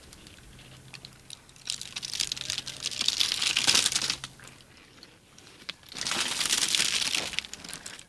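African elephant tearing at a spiny aloe with its trunk. The leaves crackle and crunch in two bursts, from about two to four seconds in and again near the end.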